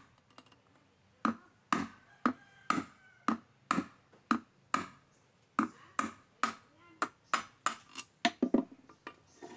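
Repeated sharp metallic taps on a brake caliper held in a bench vise, each with a short ring, about two a second, coming faster near the end.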